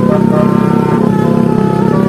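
Bus telolet horn, a 36-note multi-tone air horn, playing a quick melody of short stepped notes.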